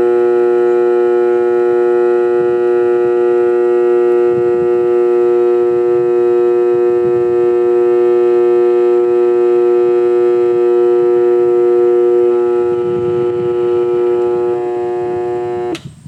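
Sanitaire vacuum cleaner's motor running at full speed with a loud, steady whine, cutting off abruptly with a click near the end.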